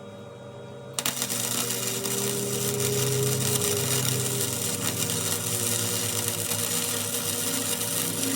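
Electric welder running a continuous weld bead to fill a hole in a steel wheel rim: a steady crackling buzz starts suddenly about a second in and carries on without a break to the end.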